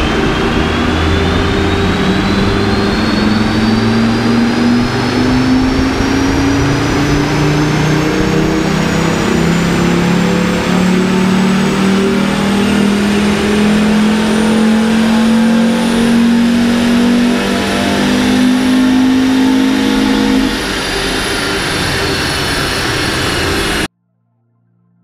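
Audi 100 C3 Avant's 2.3-litre five-cylinder engine, newly converted to electronic fuel injection, pulling a power run on a chassis dynamometer: its pitch climbs steadily through the gears' worth of revs for about twenty seconds, with a thin whine climbing alongside, then falls away, and the sound cuts off suddenly near the end.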